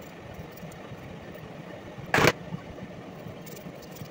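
A steady, machine-like hum, with one short, loud knock or clatter a little over two seconds in.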